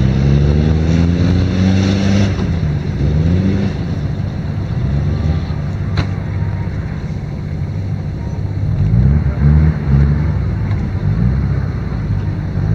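A 4x4 off-road SUV's engine revving as it accelerates away, its pitch climbing in repeated rising sweeps through the gears, hardest in the first two seconds and again around nine to ten seconds in, over a steady low rumble. A single sharp click comes about six seconds in.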